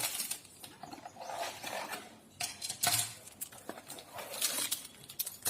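Bags of small plastic Lego pieces being handled: plastic crinkling, with the pieces rattling and clicking irregularly.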